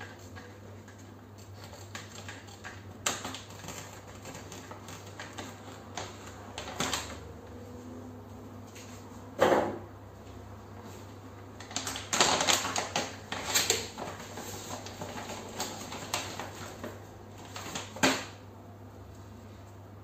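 Scissors snipping open a plastic stand-up pouch of dishwasher capsules, then the pouch crinkling and rustling as it is handled, in irregular clicks and crackly bursts with a dense spell of crinkling about two-thirds of the way through. Near the end the capsules tumble out onto a wooden countertop. A steady low hum runs underneath.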